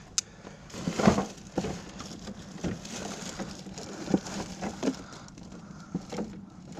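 Irregular knocks, clicks and clatter from hands working on a discarded TV, with the loudest knock about a second in.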